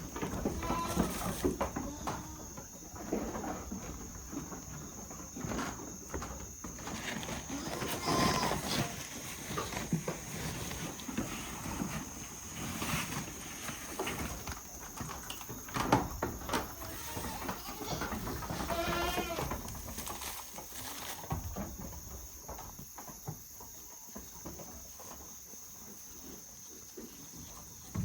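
Goats bleating, several quavering calls spread over the stretch, the loudest about a second in, near eight seconds and near nineteen seconds. The calls thin out after about twenty-one seconds.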